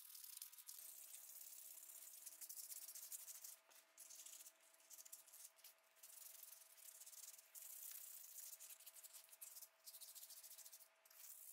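Faint hand sanding: sandpaper rubbed back and forth over a wooden knife handle in short strokes that come and go.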